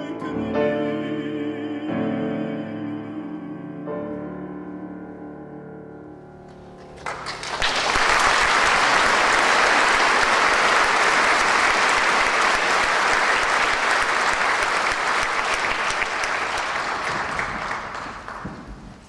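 Closing piano chords of a song ring out and fade over the first few seconds. About seven seconds in, a concert-hall audience breaks into applause, which stays loud and then dies away near the end.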